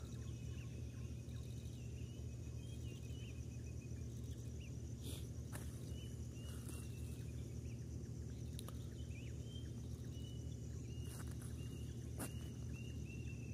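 Night-time forest chorus: a steady, high, pulsing insect trill with a lower chirping call that wavers in pitch, and a few faint clicks.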